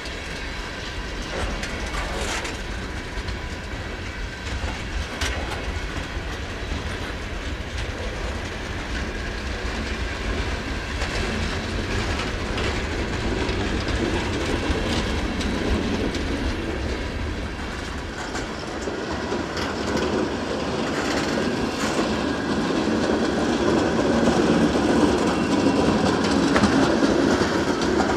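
Freight train cars rolling past, their steel wheels clicking over the rail joints in a steady clickety-clack. The sound grows louder near the end.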